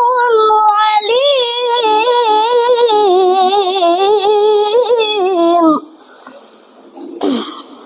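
A boy's voice chanting Quran recitation in the melodic tilawah style, drawing out the closing words 'wasi'un 'alim' on one long wavering note that breaks off about six seconds in. A short noisy burst follows near the end.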